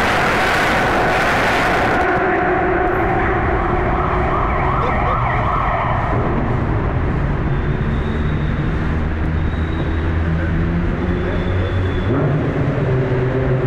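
Drift car's engine and exhaust running hard inside a road tunnel. A rushing hiss over the first couple of seconds gives way to a steady low engine note, which rises as the car accelerates again near the end.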